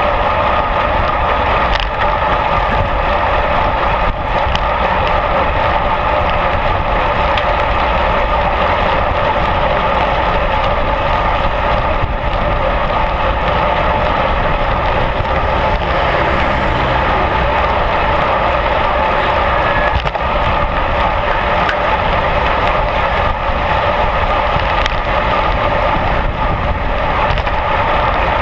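Steady rush of wind over the microphone, mixed with tyre noise on asphalt, from a camera moving with a road bicycle at racing speed.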